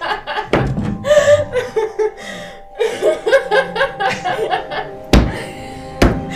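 Women laughing in bursts, with two sharp thumps about five and six seconds in and music fading in faintly underneath.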